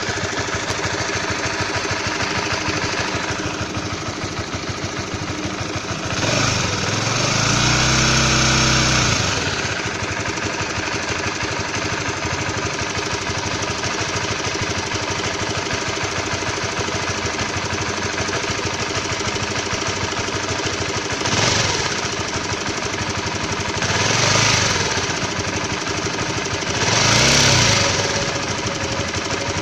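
Honda CB150R's single-cylinder engine idling with a fast rattling knock from the engine block, which the owner takes for an abnormal noise that is growing louder. It is revved once for about three seconds, about six seconds in, and blipped briefly three more times near the end.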